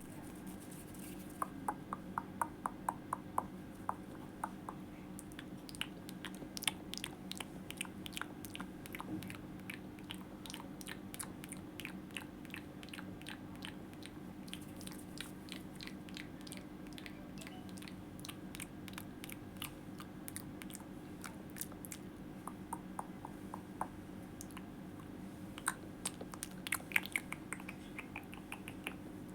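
ASMR mouth sounds: rapid, irregular wet mouth clicks and smacks close to the microphone, over a low steady hum.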